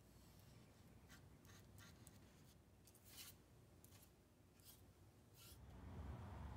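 Faint, short swishes of a paintbrush spreading contact cement, a string of quick strokes. A low rumble rises near the end.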